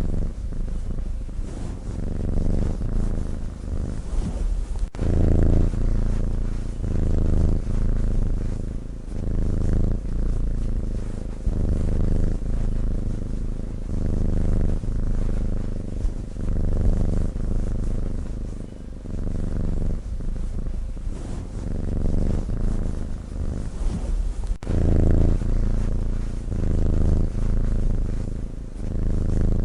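A sleeping cat breathing with a low rumble that swells and fades in a steady rhythm every second or two.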